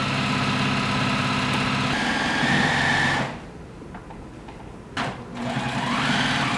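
Electric sewing machine stitching at a steady speed, stopping about three seconds in. A click follows a couple of seconds later, and the machine runs again near the end.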